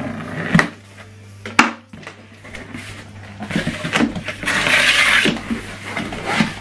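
A cardboard box being opened: scissors cutting the packing tape, two sharp knocks about half a second and a second and a half in, then the stiff cardboard flaps scraping and rubbing as they are pulled open, loudest around four to five seconds in. A steady low hum runs underneath.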